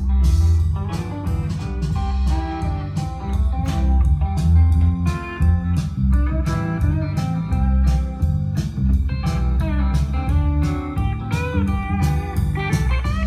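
Blues guitar music played through home loudspeakers, with strong bass.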